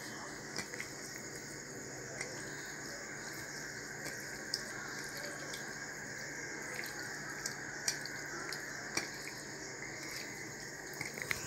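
Wet squishing of hands kneading raw boneless chicken pieces into a ginger, garlic, salt and chilli marinade in a glass bowl: a few small, scattered squelches over a steady low hiss.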